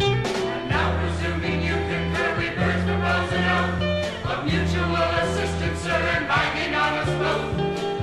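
Song with a group of voices singing together over a band, with a strong bass line, played from a vinyl record.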